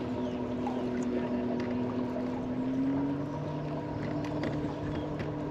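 Bow-mounted electric trolling motor on a bass boat running with a steady hum that steps up slightly in pitch about three seconds in, over wind and lapping water.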